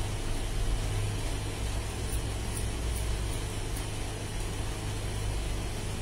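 A steady low mechanical hum fills the room, with about five faint, short scissor snips coming about half a second apart in the middle, as hair is cut.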